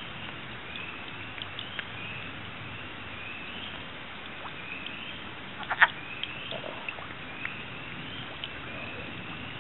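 Chorus of wood frogs calling: short rising calls repeating over a steady background of calls. A single sharp click a little before six seconds in is the loudest sound.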